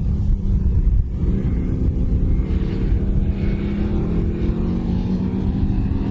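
Britten racing motorcycle's V-twin engine running loud and rough, its pitch climbing slowly from about a second in.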